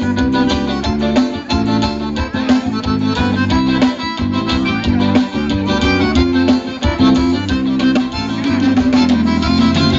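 Live forró estilizado band playing loudly through a stage PA, with guitars over bass and drums.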